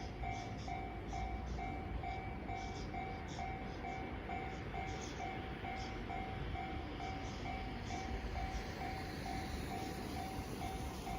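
Japanese railway level-crossing alarm ringing steadily, about two and a half dings a second. Under it runs the rumble of a train passing over the crossing, with short hissing clatters in the first two-thirds.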